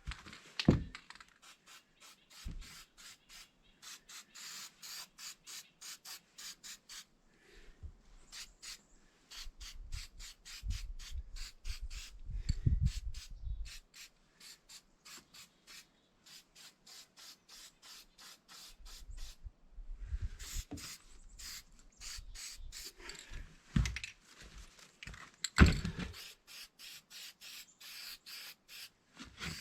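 A paintbrush scrubbing touch-up paint onto window trim in a run of short strokes, about three a second, with a few pauses. A few dull knocks come in between, the loudest one near the end.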